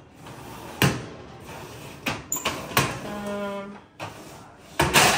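Small metal cabinet drawers being shut and pulled open, with a few sharp clicks and knocks of the drawers and their contents. The loudest knocks come near the end, as one drawer is closed and another opened.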